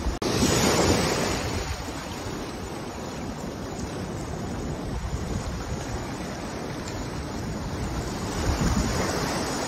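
Surf washing into a shallow sandy cove and breaking against coral rock, with wind on the microphone.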